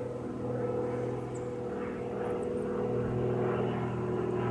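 Steady drone of a distant engine, swelling slightly near the end.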